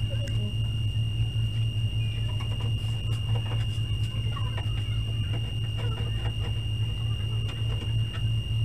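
Faint, scattered clicks and scrapes of a screwdriver working on the plastic back cover of a CRT television, over a steady low hum and a thin steady high tone.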